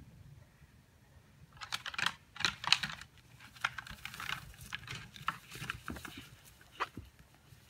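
Mule deer bucks' antlers clacking and rattling together as they push and twist with locked antlers: a quick run of sharp clicks and knocks starting about one and a half seconds in, loudest a little before the middle.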